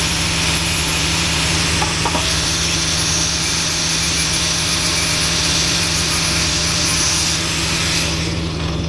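Angle grinder running steadily against steel, a loud even hiss over a low motor hum, switched off near the end and starting to wind down.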